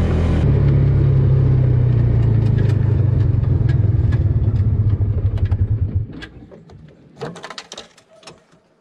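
Side-by-side UTV engine running steadily under way, then cutting off about six seconds in; a few clicks and knocks and a short rustle follow.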